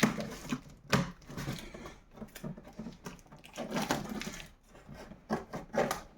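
Cardboard box and packaging being handled during unboxing: irregular rustling with sharp knocks, the loudest at the start and about a second in.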